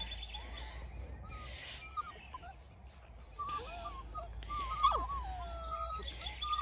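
Puppies squeaking and whining in short, gliding high notes as they play-fight over a rope toy, with small birds chirping in the background.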